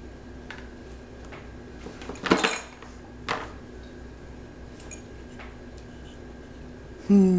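A clatter of hard objects knocking together: a loud burst of knocks about two seconds in, a single knock a second later, and a few faint ticks. Near the end a short voice sound starts, falling in pitch.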